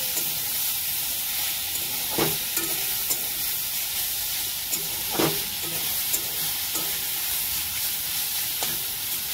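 Chopped leafy greens sizzling in hot oil in a metal kadhai while a metal spatula stirs and scrapes them against the pan, with two louder scrapes about two and five seconds in.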